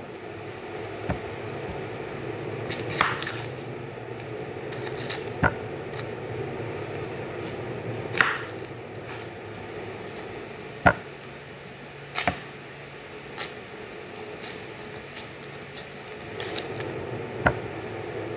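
Small knife peeling the papery skin off a large red onion: irregular sharp clicks and short scratchy scrapes as the blade catches and tears the skin, over a steady low hum.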